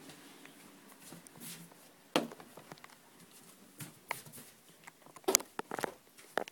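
Handling noise: scattered short clicks and knocks, one sharp one about two seconds in and a quick cluster around five seconds in.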